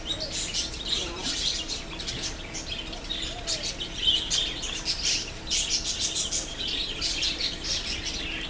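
Many small birds chirping and twittering continuously, with a faint steady hum underneath.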